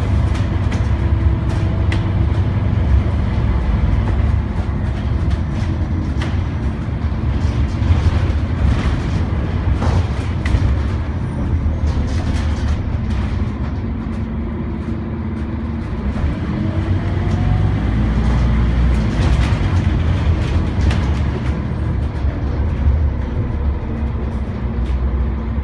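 Interior sound of a moving Scania OmniCity bus: the diesel engine running with a steady low rumble, road noise and rattling from the cabin fittings. It eases off and goes quieter a little past halfway, then pulls away again with the engine note rising.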